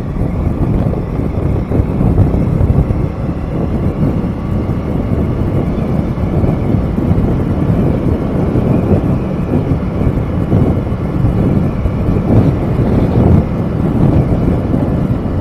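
Wind buffeting the microphone of a camera carried while riding, over a steady rumble of road and vehicle noise.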